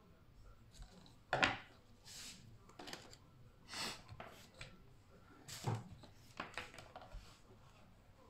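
Handling noises on a tabletop: scissors snipping heat-shrink tubing and being set down, then wires and rubber cable being gathered and slid across the table, heard as a series of short scrapes and knocks, the loudest about a second and a half in.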